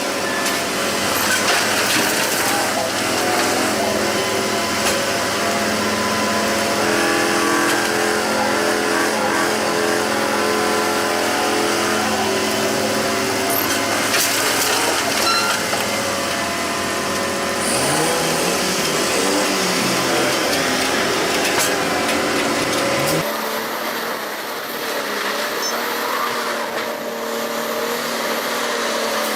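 Heavy machinery engines running steadily with mechanical clatter; the sound changes abruptly about 23 seconds in, where one machine's sound gives way to another's.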